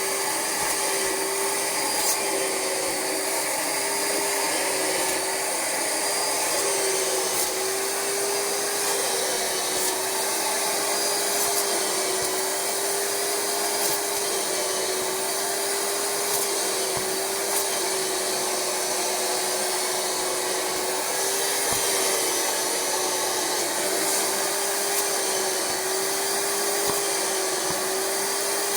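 Rug Doctor carpet cleaner's suction motor running steadily, with its upholstery hand tool in use on fabric. It is a constant rushing hum with one held tone whose pitch wavers slightly.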